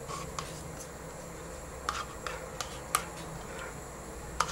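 A few light clicks and taps of a spoon working in a bowl of sour cream sauce, over a low steady hum.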